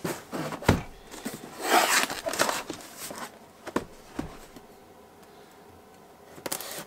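Cardboard box being lifted, turned and set down on a workbench, with scraping rustles and a few sharp knocks, as a knife is brought to it to cut it open.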